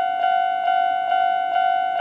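Japanese railway level-crossing warning alarm ringing with its older-type standard tone: one bell-like ding repeated a little over twice a second, each fading before the next.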